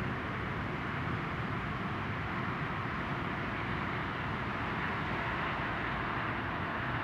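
Steady, distant vehicle noise: an even, unchanging whoosh and rumble with no build-up within these seconds.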